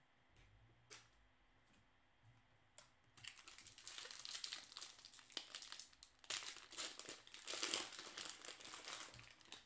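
A baseball card pack's wrapper being torn open and crinkled by hand, starting about three seconds in and loudest near the end.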